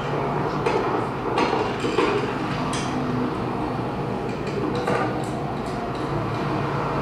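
Electronic sound score: a steady rumbling noise with several sharp clinks and knocks scattered over it.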